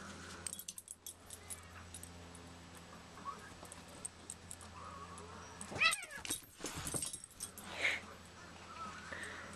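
A household pet's short, wavering cry about six seconds in, followed by a weaker call near eight seconds, over a steady low hum.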